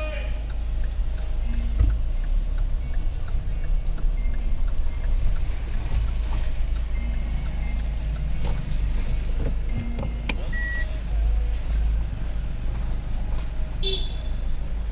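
Kia Carnival cabin noise while driving: a steady low rumble of engine and road, with the right turn signal ticking evenly in the background. A sharper click comes near the end.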